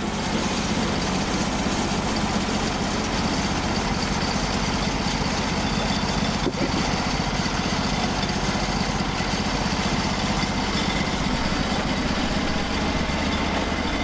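Norwood LumberPro HD36 portable band sawmill running steadily under load, its gas engine driving the band blade through a post oak log as the sawhead is pushed along by hand. The blade is dull and well past due for replacement.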